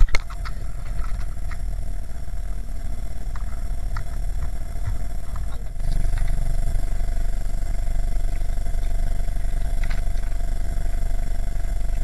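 Strong wind buffeting the microphone, a steady low rumble that gets louder about six seconds in. A few light clinks from the cast net's chain weights come through as fish are picked out of the net.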